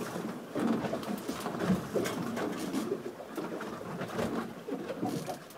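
A man's low straining grunts and hard breathing while hauling a heavy tuna by rope, with scattered knocks and rustles.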